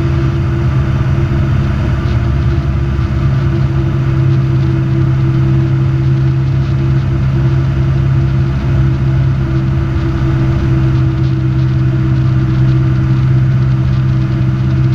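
Robin DR400 light aircraft's piston engine and propeller droning steadily in flight, heard from inside the cabin.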